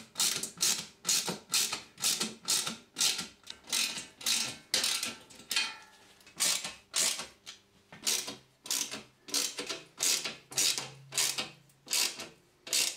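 Ratchet tool tightening the fixing bolts of a steel TV wall bracket, clicking in short bursts about twice a second, with a brief pause a little before halfway.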